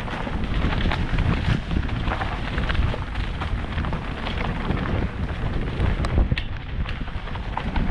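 Mountain bike descending a leaf-covered forest singletrack: wind rushing over the helmet-mounted microphone, with the tyres rolling over dry leaves and stones and frequent small clicks and knocks from the bike over bumps.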